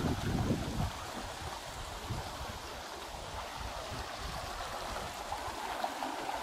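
Shallow rainforest creek babbling over rocks, a steady rush of running water. Wind buffets the microphone for about the first second.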